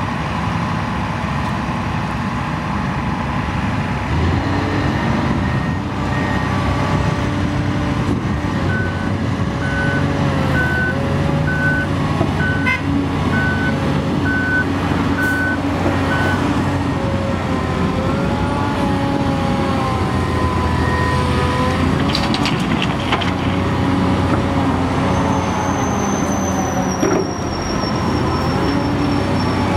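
Heavy diesel engines of a Komatsu PC800LC hydraulic excavator and dump trucks working, the engine pitch rising and falling as the machines take load. A reversing alarm beeps about once a second for several seconds in the first half.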